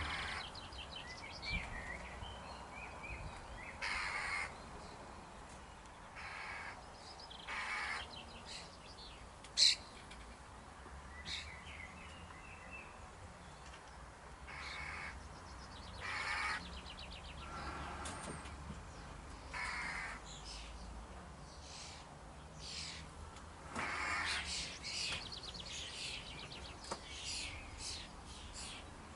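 Wild birds calling: a string of separate short harsh calls, each under half a second, with chirps and quick trills between them. A single sharp click about ten seconds in.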